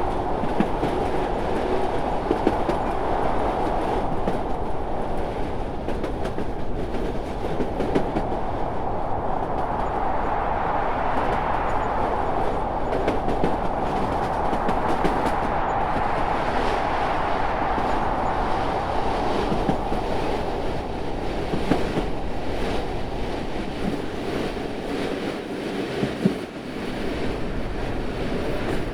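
A train running steadily along the rails: a continuous rumble and hiss with faint scattered clicks from the wheels.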